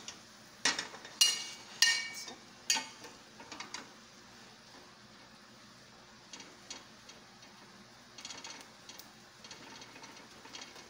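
Slotted metal spatula clinking and scraping against a stainless steel skillet while stirring dried shredded beef: a few sharp clinks with a brief metallic ring in the first three seconds, then lighter scattered taps and scrapes.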